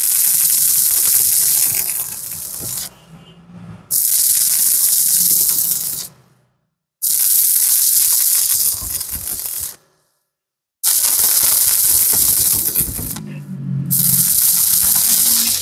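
Stick-welding arc crackling and sizzling as a flux-coated electrode burns along a weld bead on steel. It comes in several stretches, cutting off abruptly into silence about 6 and 10 seconds in, and briefly dropping away near 3 seconds and again near the end.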